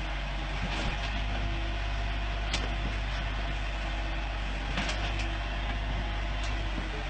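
An engine running steadily with a constant low hum, and a few faint clicks or knocks over it.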